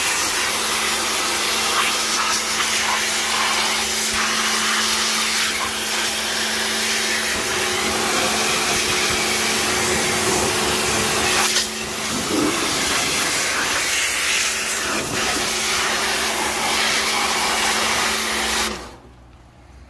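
Pressure washer running, its lance spraying a high-pressure jet of water onto an engine: a loud, steady hiss of spray over the pump's steady hum. It breaks off for a moment a little past halfway and stops suddenly near the end.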